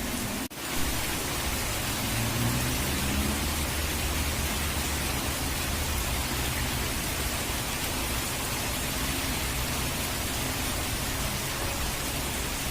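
Steady rush of falling water, rain and waterfall noise with a low rumble underneath. It cuts out for an instant about half a second in, then carries on unchanged.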